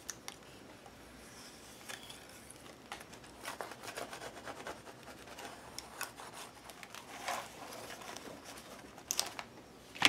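Bone folder rubbing a metal foil strip down onto a paper book page to burnish it: faint, irregular scraping strokes with light ticks. A short, louder rustle comes just after nine seconds.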